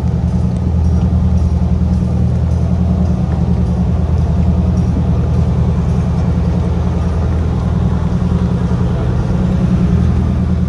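Marine diesel engine idling aboard a yacht, a steady low rumble that holds at an even pitch throughout.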